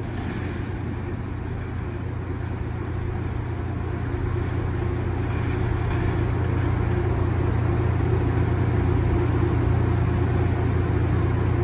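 Low, steady rumble of a subway train in the tunnel, growing a little louder about four seconds in.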